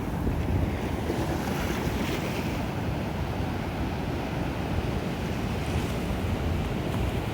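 Ocean surf breaking and washing on a beach, with a wave surging about two seconds in, and wind rumbling on the microphone.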